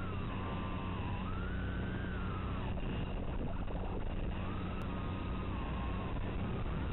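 Mini FPV quadcopter's brushless motors whining, the pitch sliding up and down again and again as the throttle changes, over a steady low hum.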